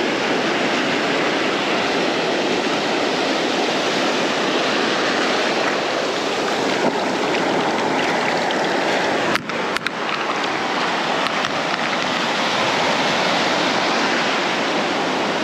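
Sea surf washing onto the beach, a steady rush of breaking waves. A couple of brief sharp knocks sound about nine and a half seconds in.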